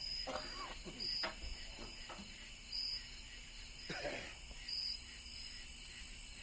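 Quiet passage of short, high chirps repeating every second or so, with faint voices now and then.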